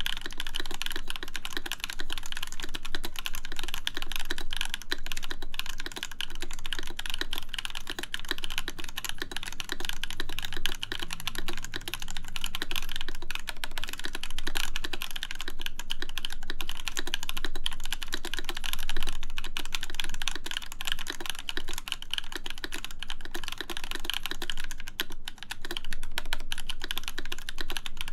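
Continuous fast typing on a full-size mechanical keyboard with lubed JWK Camping Life switches in an aluminum plate, keys clacking in a dense, steady stream with screw-in stabilized larger keys among them.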